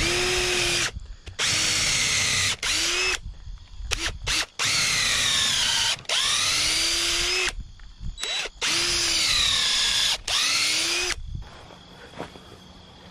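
Hammer drill boring through a wooden fence post in about six bursts, its motor slowing under load and speeding up again with each trigger pull. The drilling stops about eleven seconds in, leaving crickets chirping.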